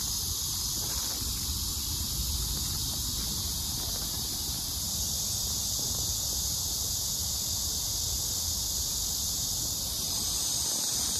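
Steady, high-pitched chorus of insects chirring, over a low rumble.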